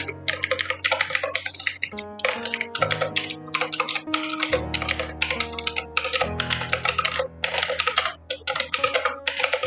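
Fast typing on a Cosmic Byte Artemis mechanical keyboard with clicky blue switches: runs of rapid key clicks broken by short pauses. Background music with steady notes plays underneath.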